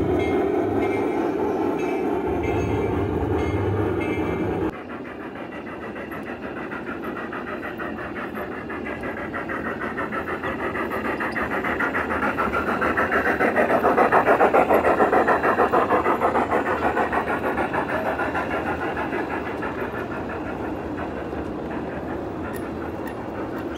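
A large-scale (1:20.3) model steam train running on aluminium rails, passing by: a rapid, even clatter that grows louder to a peak about midway, then fades. A different steady pitched sound stops abruptly about five seconds in.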